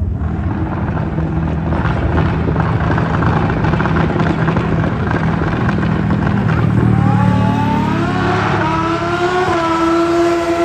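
Drag-racing engines at the strip: a steady low engine rumble, then from about seven seconds in one engine revs up hard, its pitch climbing in steps through several gear changes as a racer launches down the track.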